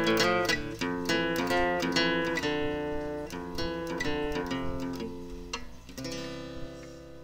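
Background music: acoustic guitar strumming and picking, fading away, with a last chord struck near the end and left to ring.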